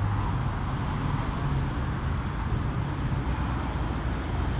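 Plymouth Barracuda V8 engine idling steadily through its exhaust.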